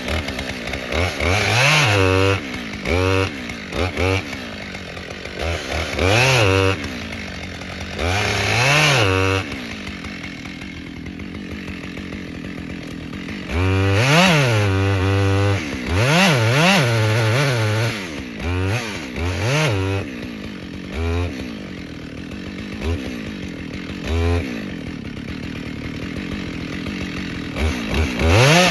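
Chainsaw revved in repeated short bursts, its pitch rising and falling each time, dropping back to idle between them.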